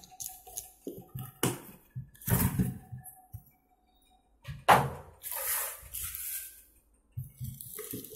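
Unpacking noises: a cardboard box and plastic wrapping being handled, with irregular rustles, knocks and light clinks. The sharpest knock comes a little past halfway.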